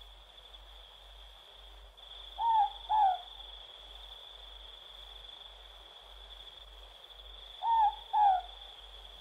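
Morepork (ruru) owl giving its two-note 'more-pork' call twice, about five seconds apart, over a steady high insect chirring.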